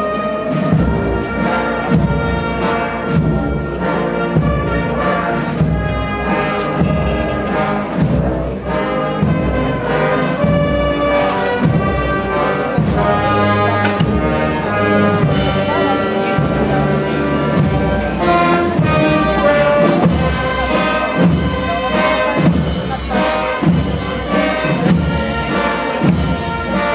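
Brass band with trumpets and trombones playing a processional march, with a steady drum beat under it.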